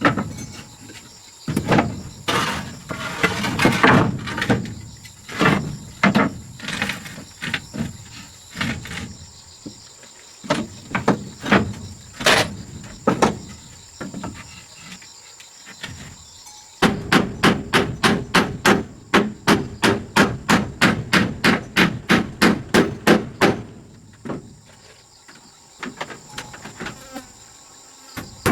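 Hammering: scattered, irregular blows at first, then a fast, even run of about four strikes a second for some seven seconds, stopping a few seconds before the end.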